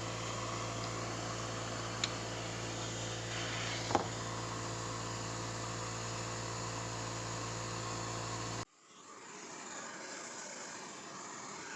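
A steady machine hum with an airy, fan-like noise, broken by a couple of light clicks, that cuts off abruptly about three quarters of the way through, leaving a quieter steady hiss.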